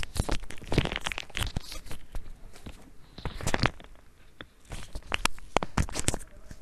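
Irregular crackling and crinkling: rapid runs of sharp clicks in three clusters, loudest in the first second and a half, with more a little past the middle and near the end.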